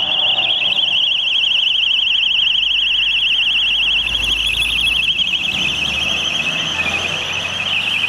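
Electronic siren on the rally's official car giving a high, rapid warble, loud and steady, as the car drives by.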